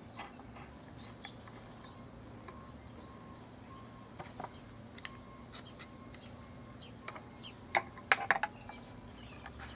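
Faint clicks and clinks of slip-joint pliers and a quick-connect air plug being handled and tightened into a sandblast gun's handle, with a quick cluster of sharper clicks near the end. Faint bird chirps sound in the background.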